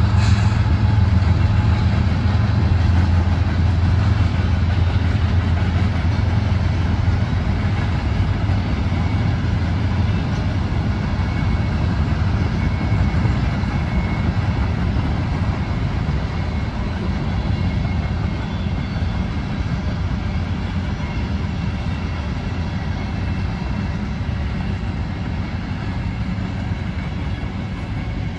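Freight train of covered hopper cars and boxcars rolling past: a steady low rumble of steel wheels on the rails, slowly getting quieter.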